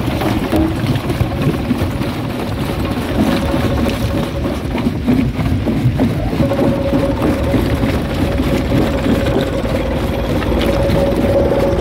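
Rock crusher running: a steady mechanical drone under a dense, irregular clatter of stone being crushed. A steady whine rides on top and grows stronger about halfway through.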